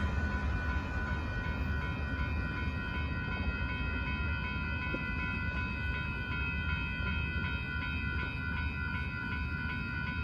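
Railroad crossing warning bell ringing continuously, its steady ringing tones over a low rumble.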